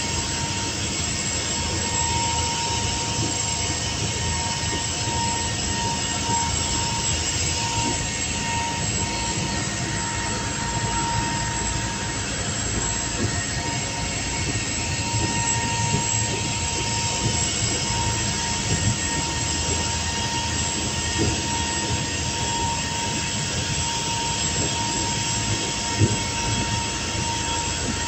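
Motor yacht under way: steady drone of its engines heard from the helm inside the cabin, over a rush of wind and water, with a steady high whine throughout and a single sharp knock near the end.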